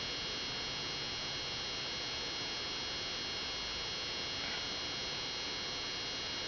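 Steady electrical hiss with several constant high whining tones, unchanging throughout.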